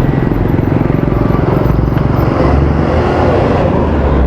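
Motorcycle engine running with a fast, even pulsing. A deeper low rumble comes in about halfway through.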